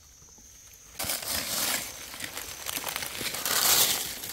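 Dry fallen leaves crunching and rustling as the leaf litter is disturbed, starting about a second in.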